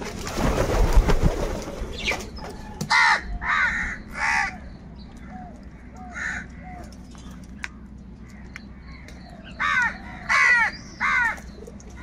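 House crows cawing: three harsh caws about three seconds in, a fainter one in the middle, and three more near the end. It opens with a loud whooshing rush of noise lasting about two seconds.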